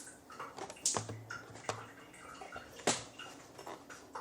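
A few light, irregular knocks and clicks of shower fittings being handled, the sharpest about a second in and near three seconds.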